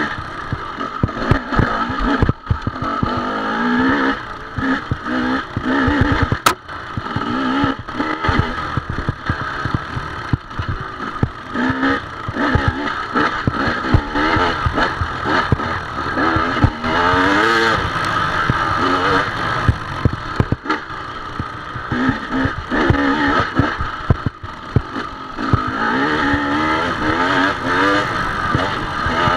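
Off-road dirt bike engine revving up and down over and over as the throttle is worked, with rattling and knocking from the bike bouncing over rocks.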